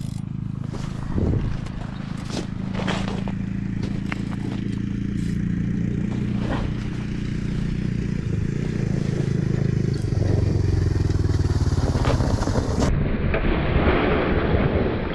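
A small engine running steadily, its pitch shifting lower and a little louder about ten seconds in, with scattered scrapes and clicks over it.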